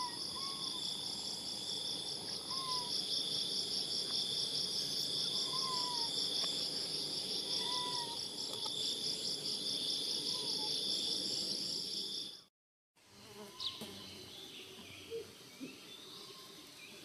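Insect chorus: a steady, high-pitched, fast-pulsing buzz, with short bird notes every couple of seconds. It cuts off about three-quarters of the way through and returns as quieter outdoor background with scattered bird chirps.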